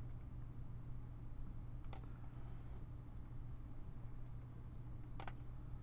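Faint, scattered clicks from working a computer, the two clearest about two seconds in and near the end, over a steady low hum.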